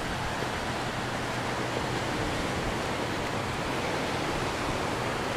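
Steady, even rushing of ocean surf.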